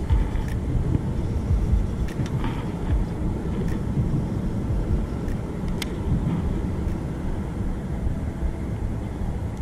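Steady low rumble of road traffic on the bridge, with a few faint clicks.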